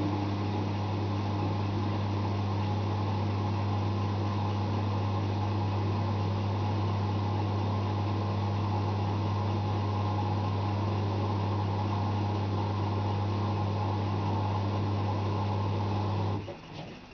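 Zanussi ZWF 1621 W washing machine in its fast spin, the drum and motor giving a steady, even hum with a low drone. The hum cuts off suddenly near the end.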